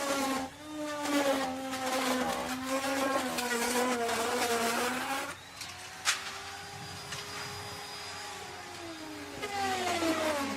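Electric wood router running and cutting into wood: the motor's pitch sags and a rough cutting noise rides on it for about five seconds. The router then spins free at a higher, steadier pitch, with a sharp click about six seconds in, and starts cutting again near the end, its pitch dropping once more.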